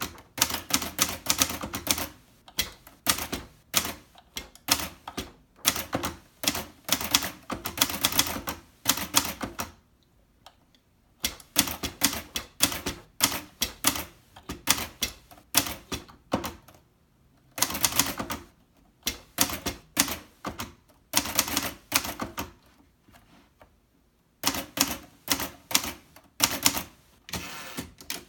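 1969 Hermes Rocket manual portable typewriter being typed on: quick runs of sharp keystrokes as the typebars strike, broken by a few short pauses.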